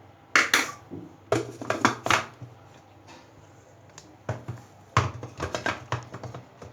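Dried carob pieces clattering into the cup of an electric spice grinder, in several short bursts of sharp clicks and knocks.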